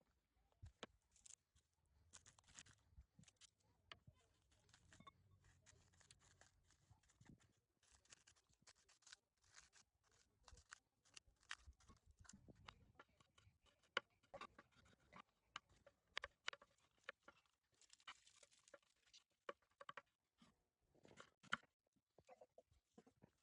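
Quiet, irregular clicks, taps and rustles of objects being handled, with a few sharper knocks about halfway through and again near the end.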